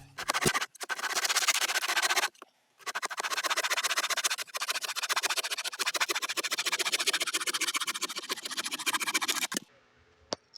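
Folding pocket saw cutting through a branch with rapid scraping strokes, pausing briefly twice, then stopping about a second before the end, followed by two small ticks.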